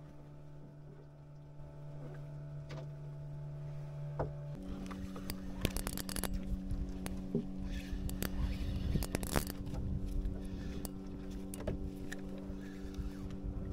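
Boat engine running steadily at a low speed, then stepping up to a higher, steady speed about four and a half seconds in, getting louder. Scattered knocks sound over it.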